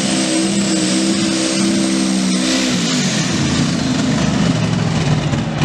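Supercharged engine of a super modified 2wd pulling truck held at high revs: a steady engine note with a thin high whine over it. About three seconds in, the note drops to a lower, rougher throb.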